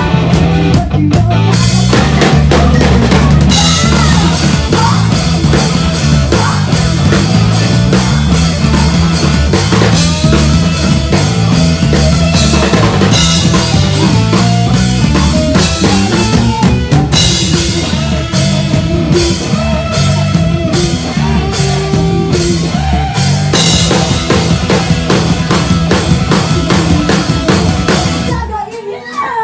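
Live rock band playing a fast Japanese rock song, with a female singer over two electric guitars, bass and a drum kit. The drums are prominent. Near the end the band drops out briefly, then crashes back in.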